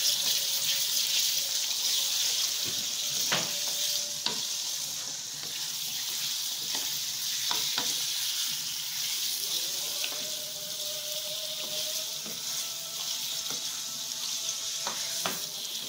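Chicken pieces sizzling in hot oil in a non-stick karahi, stirred with a wooden spatula that scrapes and knocks against the pan a few times. The chicken is being fried together with browned onion so that its water cooks off.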